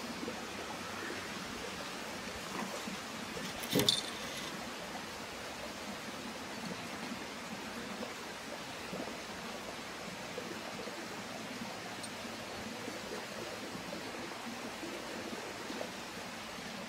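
Steady, even outdoor background hiss, with one short jingle about four seconds in from a cat's collar bells as it moves.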